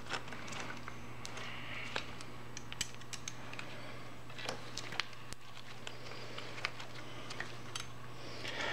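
Scattered light metallic clicks and taps of a hex key and screws being worked by hand while a clutch slave cylinder is fitted to a motorcycle transmission case, over a steady low hum.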